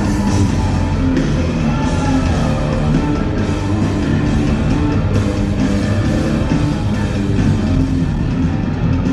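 Live country-rock band playing loud and steady without vocals: drum kit, bass guitar and electric guitar.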